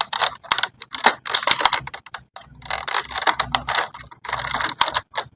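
Stiff plastic packaging crackling and clicking as an action figure is worked free of its plastic tray, in rapid, irregular crackles with short pauses.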